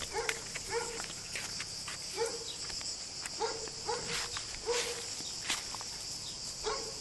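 A dog, most likely one of the Weimaraner puppies, giving short, repeated yips about twice a second, with a short break in the middle. A steady high chirring of insects runs underneath.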